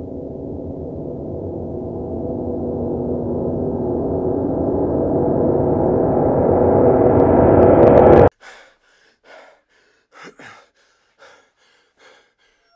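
A gong-like drone swelling steadily louder for about eight seconds, then cutting off abruptly. A few faint, short sounds follow.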